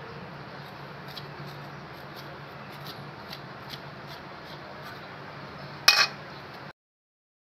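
Hands mixing food in a stainless steel bowl: faint small clicks and rustling over a steady low hum, then about six seconds in a metal spoon clinks sharply against the steel bowl with a brief ring. The sound cuts off suddenly just after.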